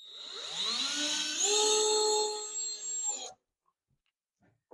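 Power drill whirring: the motor spins up with a rising whine, holds a steady pitch for about two seconds, then stops suddenly.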